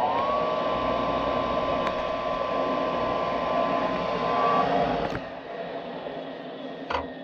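Small electric motor with air rushing, reaching full speed at the start with a rising whine, running at a steady whine, then cutting off about five seconds in.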